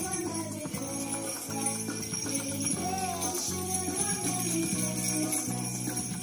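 Small jingle bells on wooden handles shaken unevenly by a group of toddlers, jingling continuously over recorded instrumental music.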